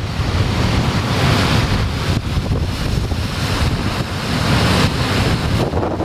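Heavy storm surf breaking and churning against sea cliffs, swelling twice as big waves break, with strong wind buffeting the microphone.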